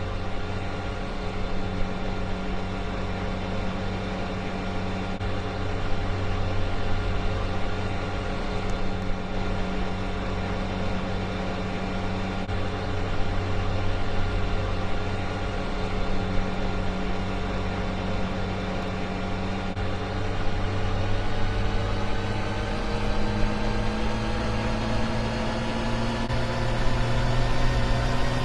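Hotpoint washing machine motor running with a steady whine over a low hum; about twenty seconds in, the whine starts climbing in pitch as the motor speeds up.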